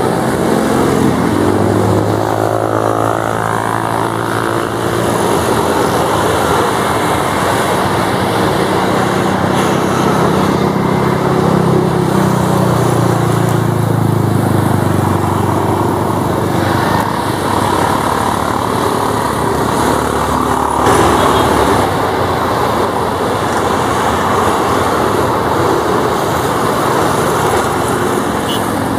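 Turboprop engines of NC-212 (CASA 212) aircraft running on the ground, a loud steady propeller drone. The engine tones rise and fall as the aircraft move about.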